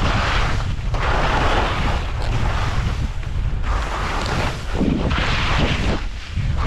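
Wind buffeting the microphone over a constant low rumble, with skis scraping and hissing over packed snow in repeated surges as the skier turns through moguls.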